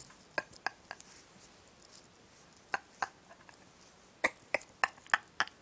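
Faint short clicks: a pair early, another pair in the middle, then a quicker run of five, about three a second, near the end.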